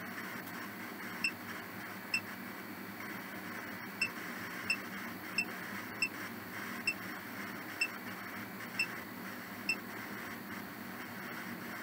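Steady static hiss with a short high beep about once a second, played by a ghost-hunting (spirit box) app during a ghost session.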